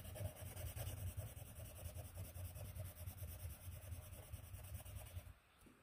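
Koh-i-Noor Polycolor colourless blender pencil rubbing back and forth over coloured-pencil strokes on drawing paper, a faint, steady scratching. It stops about five seconds in.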